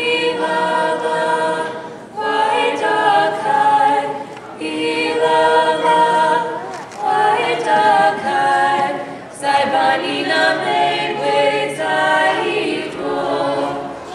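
A small group of students singing a Chinese song together without accompaniment, in phrases with short breaks between them.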